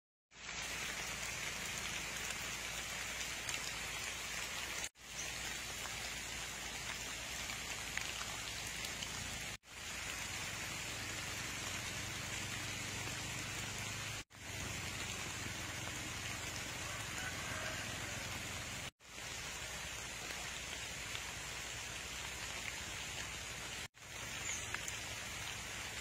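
Steady rain falling on the leaves of durian trees, an even hiss that breaks off for an instant about every five seconds.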